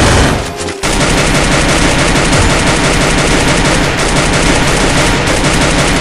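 Rapid automatic gunfire, a machine-gun style stream of shots, with a short break a little under a second in before it resumes without let-up.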